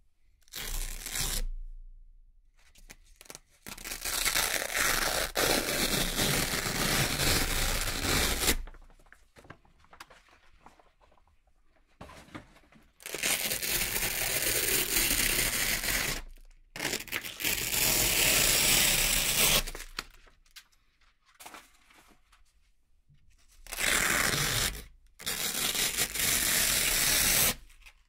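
Velcro hook-and-loop strips peeled apart by hand in about six long tearing rips, several lasting a few seconds each, with short quiet pauses between them.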